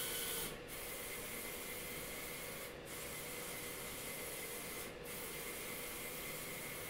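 Steady scratchy rubbing noise, like something being rubbed or sanded, that breaks off briefly about every two seconds.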